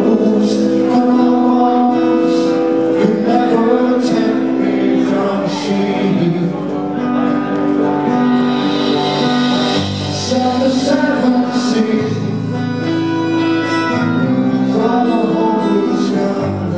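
Live band music from a small acoustic set: strummed acoustic guitar and electric bass, with a melody of long held notes over them.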